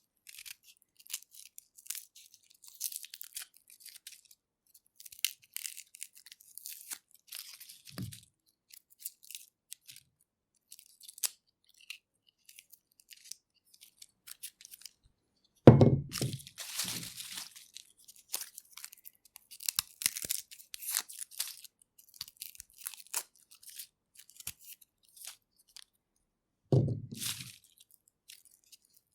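Garlic being peeled: dry papery skins crackling and tearing in quick, irregular bursts. Three dull knocks break in, the loudest about halfway through.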